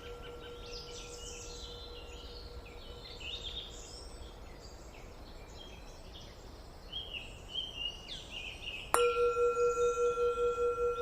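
A Tibetan singing bowl rings on, fading, then is struck again near the end, its pure tone swelling back with a slow wavering beat. Birds chirp and twitter throughout.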